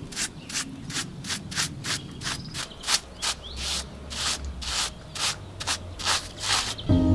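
Repeated hand rubbing or scraping strokes on a rough surface, about three a second, steady in rhythm. Soft piano music comes in near the end.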